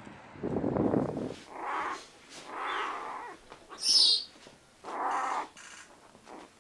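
Young puma cubs crying with repeated mewing calls, four separate cries, the one about four seconds in a higher, sharper squeal and the loudest. A short burst of low rushing noise comes about half a second in, before the calls begin.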